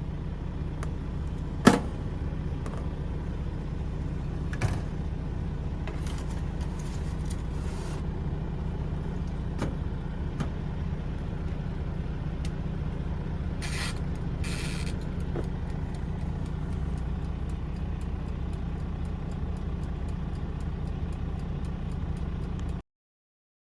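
Steady low rumble of a semi truck's engine running, with a few sharp clicks and two short noisy bursts partway through; it cuts off suddenly near the end.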